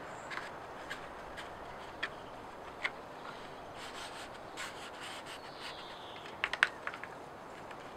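Stiff birch bark strips rubbing and crackling as they are wrapped and pressed around a bark sheath, with scattered sharp clicks and, near the end, a quick run of louder crackles.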